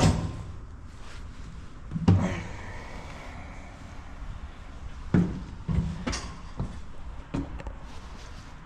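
A handful of separate clunks and knocks of metal being handled, about six in all. The one about two seconds in leaves a short metallic ring.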